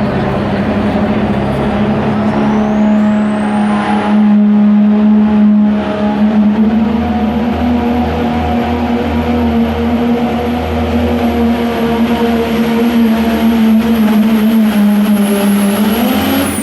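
Pro stock diesel pickup truck engine running at full throttle under load during a truck pull, a loud steady drone. A thin high whine climbs over the first few seconds and then holds. The engine note rises just at the end.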